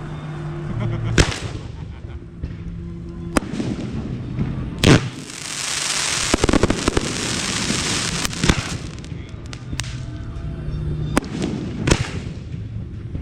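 Aerial fireworks show: about six sharp shell bursts, the loudest about five seconds in. A few seconds of dense crackling hiss follow it in the middle. Faint music plays underneath.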